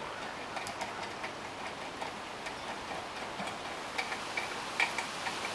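Light, irregular metallic clicks of a 19 mm socket and nut being turned by hand onto a beadlock wheel's steel starter bolt, over a steady hiss.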